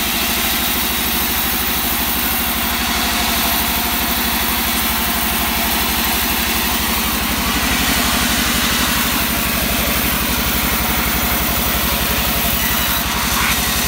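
Engine-driven band sawmill running steadily and ripping lengthwise through a wangkal log: a dense saw hiss over the rapid, even throb of the engine.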